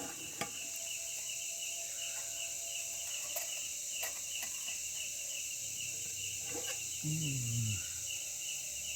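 Forest insects calling: a steady high buzz with a chirp repeating about three times a second. A few light clicks, and about seven seconds in a brief low falling sound.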